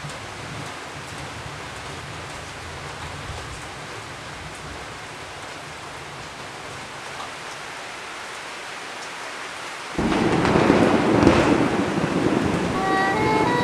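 A steady low hiss, then about ten seconds in a thunderstorm breaks in suddenly and much louder: a clap of thunder rumbling over heavy rain. A few notes of music come in near the end.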